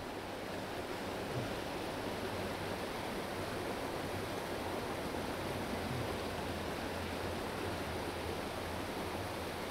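Small stream rushing steadily over rocks through a riffle and little cascade.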